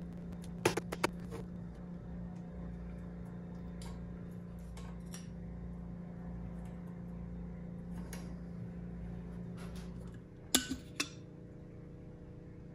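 Sharp metallic clicks and clinks as a motorcycle's chrome headlamp rim, reflector and glass bulb are handled, over a steady low hum. The hum stops about ten seconds in, and a few more clinks follow straight after.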